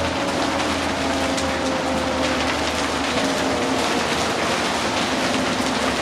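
Cabin noise aboard a New Flyer D60LFR articulated diesel bus under way: a steady drivetrain drone with a whine that drifts slightly lower, over a constant wash of road and rain noise with scattered clicks and rattles.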